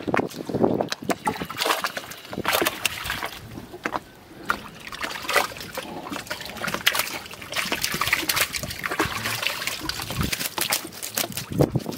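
Water splashing and streaming off a mesh net bag as it is hauled up out of the water by its rope, with dripping and sloshing throughout.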